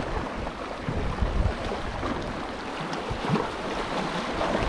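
Sea water washing and splashing along the shore, with wind gusting on the microphone.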